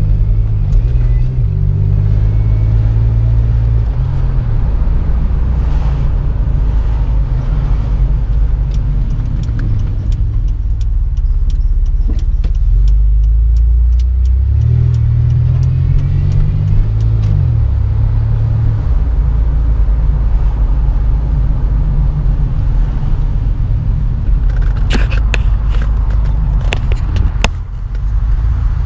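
2005 Chevrolet Impala 9C1's 3.8-litre V6 and road noise from inside the cabin while driving, a steady low rumble with the engine note rising and falling as the car speeds up and slows. A run of sharp clicks comes near the end.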